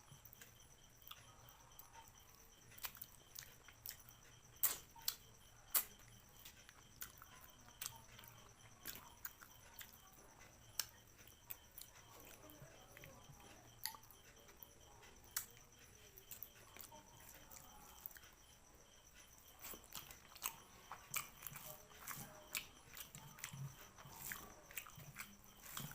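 A person chewing and eating close to the microphone: wet mouth smacks and sharp, irregular clicks. They come in clusters and grow denser near the end.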